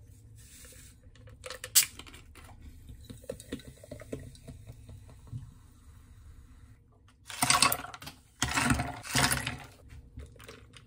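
Water poured from a plastic bottle into a glass tumbler of cherry drink mix, and ice added. A sharp clink comes about two seconds in, and two louder spells of splashing and rattling come near the end.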